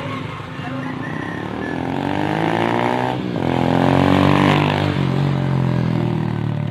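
A motor vehicle engine speeding up, its pitch rising, breaking off briefly about three seconds in, then rising again. It is loudest just past the middle and eases off after.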